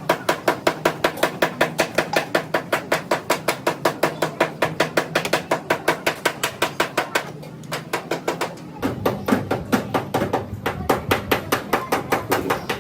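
Hammer strikes in a rapid, even rhythm, about five a second, pausing briefly around the middle and then resuming.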